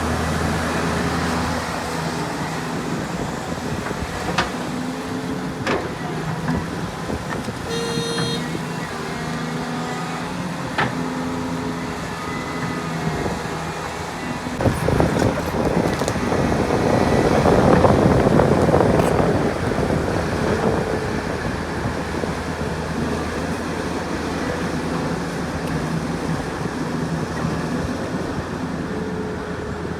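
Heavy diesel engines of an excavator and dump trucks running steadily, with a few sharp metallic knocks and a short beep about a quarter of the way in. Near the middle a louder rushing, rumbling surge builds and fades over several seconds.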